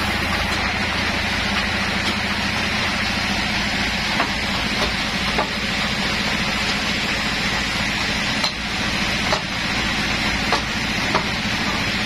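Sawmill bandsaw running steadily, not cutting, while the log is set on its carriage, with a few short knocks as the log is handled.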